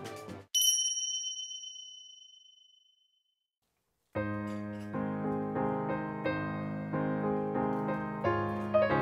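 Background music cuts off, a bright chime rings once and fades away over about two seconds, then after a short silence gentle piano music begins with an even beat.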